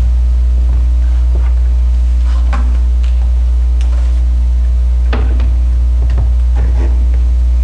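Loud, steady low electrical mains hum, with a few scattered knocks and clicks as the acoustic guitar is handled and lowered onto its stand.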